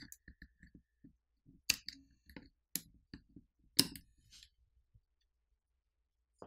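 Small clicks and taps of a pry tool on a smartphone's internals as flex cable connectors are popped off the board, with two sharper clicks about two seconds apart.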